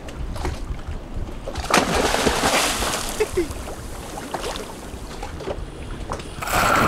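A person jumping feet-first off a boat into the sea: a big splash about two seconds in, then churning water settling. Another splash near the end.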